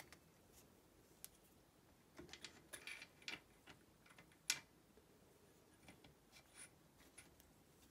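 Near silence broken by a few faint light clicks and taps, the sharpest about four and a half seconds in: valve tappets being handled and set into their bores in a Fiat 126 engine block.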